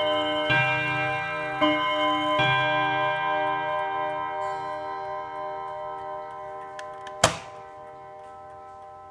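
Kieninger German pendulum mantel clock striking: three more strokes about a second apart, after which the ringing tones fade slowly. A single sharp click about seven seconds in.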